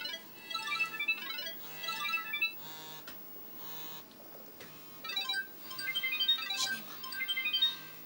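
Electronic ringtone melody playing from a small mobile phone's speaker: phrases of short, high beeping notes, with a break about four seconds in before the tune resumes.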